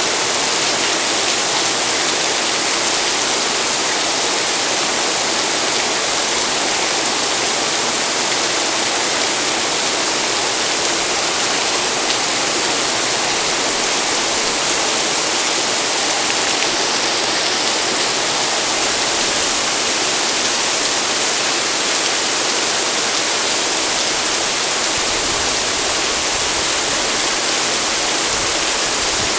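Heavy rain pouring down steadily, a loud even hiss, with a low rumble joining in near the end.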